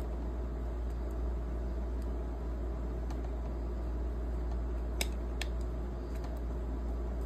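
Two sharp plastic clicks about five seconds in as a Galaxy Z Flip5 is pressed into its Samsung Flipsuit case, with a few fainter handling clicks, over a steady low background hum.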